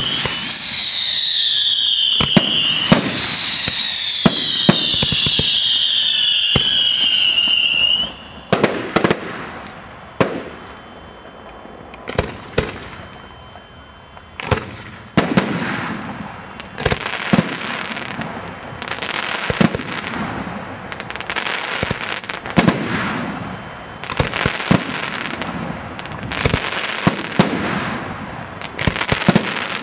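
Aerial fireworks display. For about the first eight seconds, several overlapping whistles slide down in pitch over sharp bangs. The whistles stop abruptly, and a run of shell bursts follows, each a sharp bang followed by crackling.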